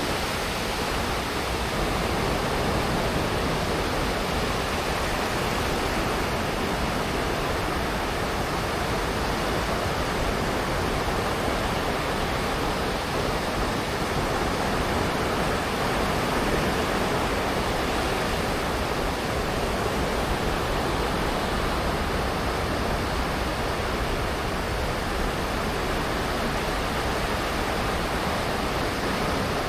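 Sea waves washing onto a beach, heard as a steady, unbroken rush without distinct single breakers.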